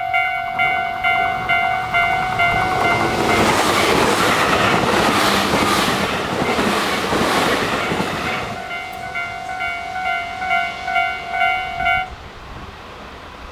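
Japanese level-crossing warning bells ring in a steady repeating ding, about two and a half strikes a second. An electric train passes at speed for about five seconds, its wheels clacking over the rail joints and drowning the bells. The bells go on after the train has gone and stop abruptly about twelve seconds in, the sign that the train has cleared the crossing.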